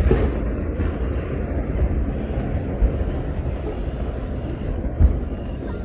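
Deep rolling rumble echoing from a large aerial fireworks shell that burst overhead a moment before, with another sharp boom about five seconds in.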